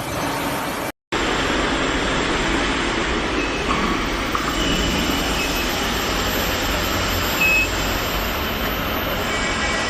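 Steady mechanical background noise with a low rumble, broken by a short gap about a second in, with a brief high beep about three quarters of the way through.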